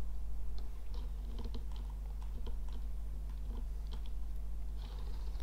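Scattered light clicking of a computer keyboard and mouse, a dozen or so irregular clicks, over a steady low electrical hum.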